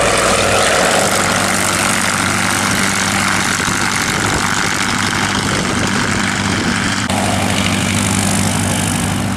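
Avro Anson's twin radial engines running at take-off power as the aircraft climbs away. About seven seconds in there is an abrupt switch to a single light aircraft's propeller engine idling.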